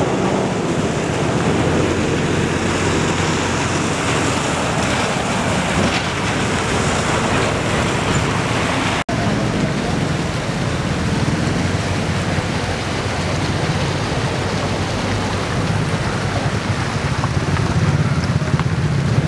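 Steady noise of road traffic and running floodwater with a low hum of engines, dropping out for an instant about halfway.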